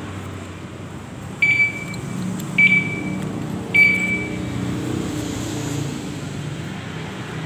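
Three short, high electronic beeps about a second apart, over a steady low hum.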